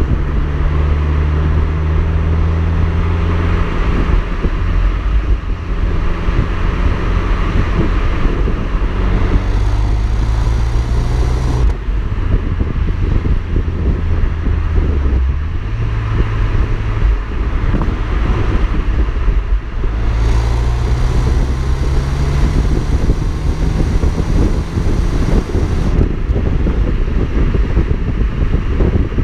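Exhaust of a remapped Alfa Romeo MiTo 1.4 TB turbocharged four-cylinder petrol engine while driving, picked up right at the twin tailpipes. The engine note shifts up and down several times as the revs change, with wind rushing over the microphone.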